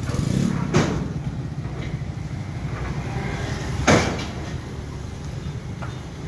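Vehicle engine running with a steady low rumble, with two sharp clunks about three seconds apart, the second the loudest.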